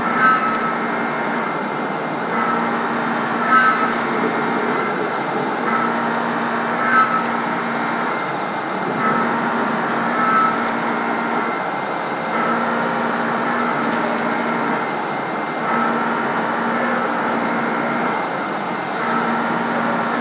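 CNC vertical machining centre milling at high speed. It runs in a steady cycle of passes about every three and a half seconds, each opening with a short sharp click followed by a low hum.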